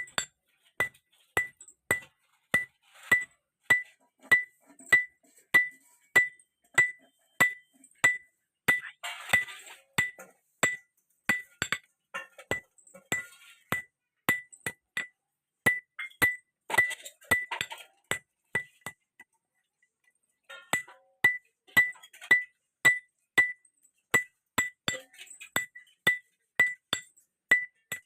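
Blacksmith's hammer striking steel on an anvil, about two ringing blows a second, forging a chisel from a railway clip. The blows pause briefly after about two-thirds of the way through, then carry on.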